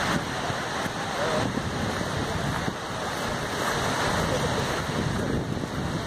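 Steady rush of Skógafoss, a large waterfall dropping about 60 m, with wind buffeting the microphone.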